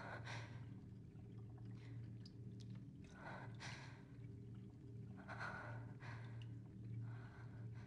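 A person breathing heavily and unevenly, with a loud breath or gasp every second or two, over a low steady hum.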